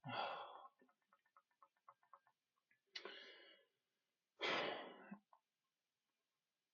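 A person sighing heavily three times in exasperation: one long exhale right at the start, another about three seconds in, and a loud one about a second after that. Faint rapid clicking runs under the first two seconds.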